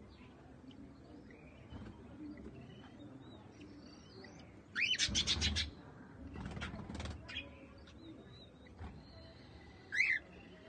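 Cockatiels calling: faint scattered chirps, then a loud burst of rapid repeated chirps that opens with an upward sweep about five seconds in, a few more chirps a second or so later, and a short rising call near the end.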